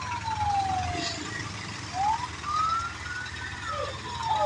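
Fire engine siren wailing in slow rising and falling sweeps: it falls away early, then climbs again about two seconds in and starts to fall near the end.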